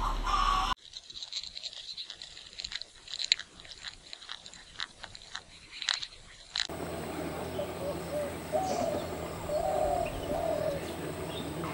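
Dense, irregular crackling and ticking for about six seconds. It then cuts to a steady outdoor hiss with a few short warbled bird calls.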